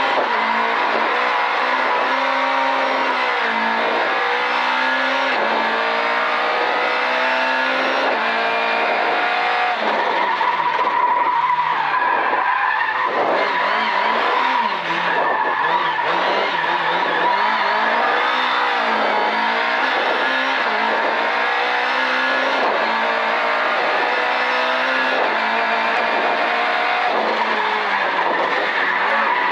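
Race car engine heard from inside the cabin, its revs rising and falling again and again as it is driven hard, with a steady high whine above it.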